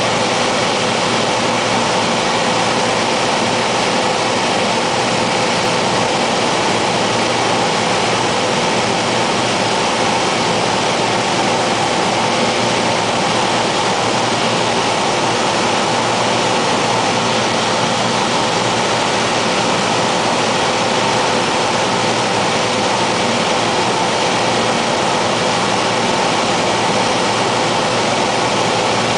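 Cessna 210's piston engine and propeller in flight, heard inside the cabin as a steady drone with an even rush of air noise and a few steady hum tones.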